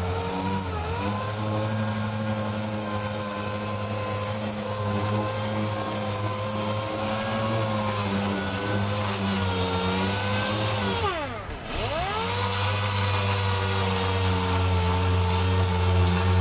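Pneumatic random orbital sander dry-sanding body filler on a car door, running with a steady whine. About eleven seconds in its speed drops sharply and climbs straight back up.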